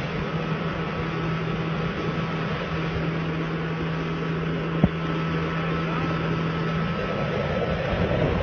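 The motor of a narrow wooden boat droning steadily at speed, with water rushing along the hull. A single sharp click comes about five seconds in.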